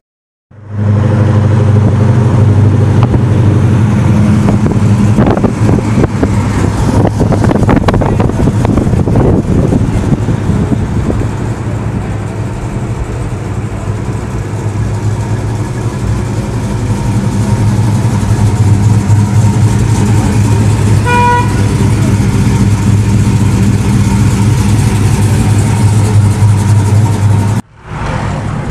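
Car engine and exhaust running loud and steady, with a low drone throughout. A short car horn toot sounds once, about twenty seconds in.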